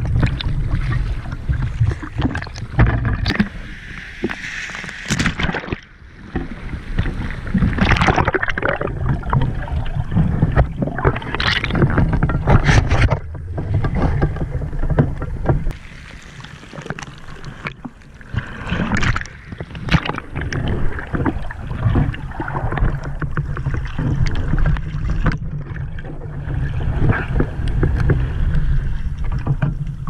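Water moving against an action camera's waterproof housing, underwater and at the wavy surface: a steady low rumble with irregular swishing surges and splashes, dipping quieter twice.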